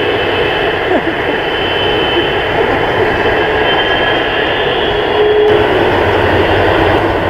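Boeing 747-400 freighter's four jet engines running at taxi power: a steady roar with a high, held whine. The sound shifts abruptly about five and a half seconds in.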